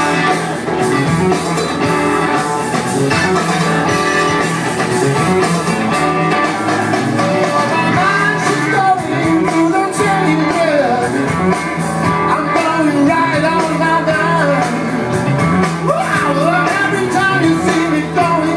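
Live rock band playing: electric guitars, drums and keyboards, with a singing voice that comes to the fore about halfway through.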